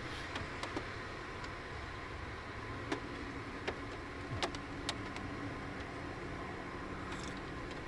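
Steady noise of street traffic passing outside, heard from inside a parked campervan. A few light clicks and taps are scattered through it, from handling a carton and a steel tumbler at the counter.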